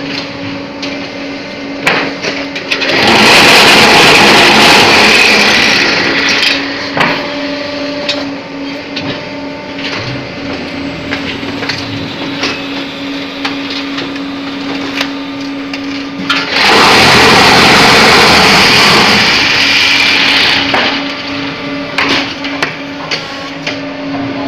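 Multi-block paving-block press running: a steady motor hum with scattered knocks, broken twice by loud spells of the mould vibrator shaking, about three seconds long early on and four seconds long past the middle, as the concrete mix is compacted in the mould.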